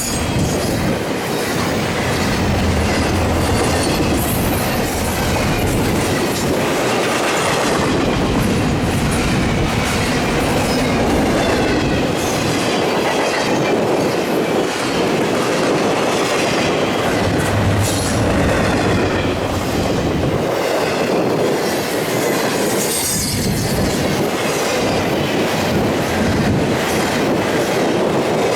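Cars of a CSX freight train rolling past, with a steady rumble and clatter of wheels over the rails and occasional high wheel squeals.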